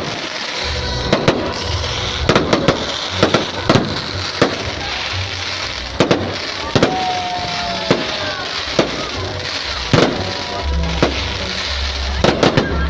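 Fireworks going off: an irregular run of sharp bangs and pops over a steady crackling hiss, with a deeper rumble near the end.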